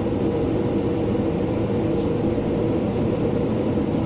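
Scania G460 truck's 13-litre inline-six diesel running steadily at highway cruising speed, heard from inside the cab as an even drone mixed with tyre and road noise.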